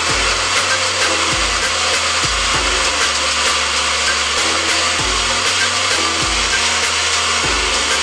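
Electric countertop blender running steadily at speed, churning its contents.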